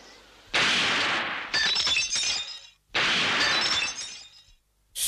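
Two cartoon sound effects of glass shattering, about two and a half seconds apart. Each is a sudden loud crash followed by tinkling shards that fade out.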